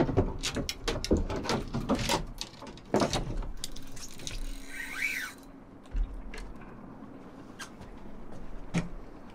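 Rapid clicks and knocks of a fishing rod and reel being grabbed and handled in a small boat as a fish takes, with a brief squeak about halfway through and a few single knocks after.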